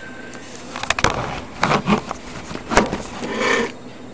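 A couple of sharp clicks, then several short bursts of scraping and rustling as small objects are handled on a hard surface.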